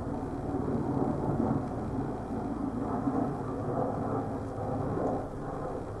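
Steady low background rumble with no distinct calls or knocks.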